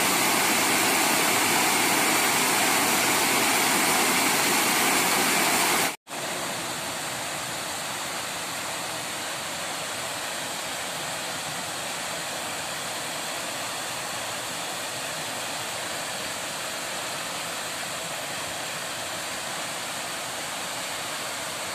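Steady rush of water from a small weir waterfall pouring into a pool. About six seconds in the sound cuts out for an instant and returns somewhat quieter.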